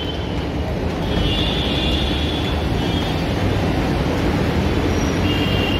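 Steady road traffic noise of a busy city street.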